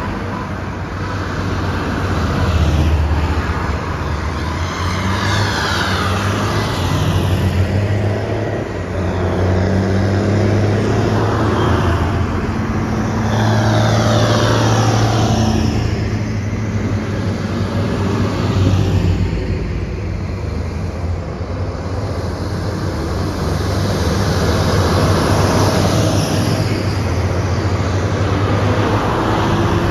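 Large diesel farm tractors driving past one after another, with some cars among them, on a wet road. The engines hum steadily under a constant hiss of tyres, and the pitch falls as each vehicle goes by.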